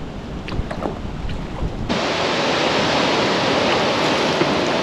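Wind buffeting the microphone with a few light clicks. About two seconds in it changes abruptly to a steady rush of flowing river water.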